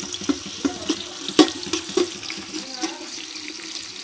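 Metal spatula scraping and clinking against a large aluminium pot as sliced onions are stirred in hot ghee, over a steady sizzle of frying. The clinks come about twice a second, each ringing briefly off the pot.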